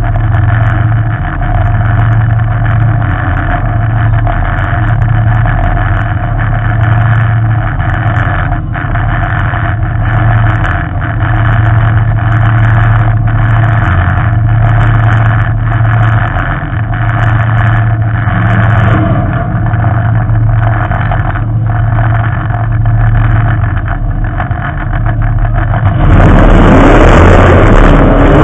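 Figure-8 race car's engine idling, loud and steady, heard from a camera mounted on the car. About two seconds before the end the engine revs up hard as the car pulls away.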